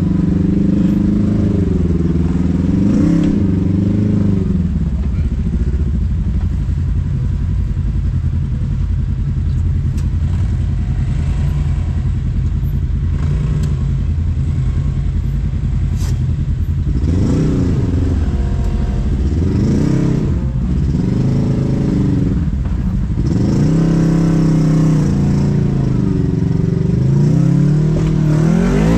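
Side-by-side UTV engine heard from inside the cab while crawling over rocks. It runs at a low, fairly even pace for the first half, then is revved up and down several times in the second half, with a few sharp knocks and some clatter from the rough ground.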